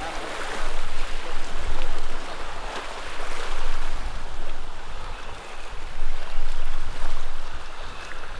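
Surf washing against jetty rocks: a steady rushing that swells and eases every couple of seconds, with wind rumbling on the microphone.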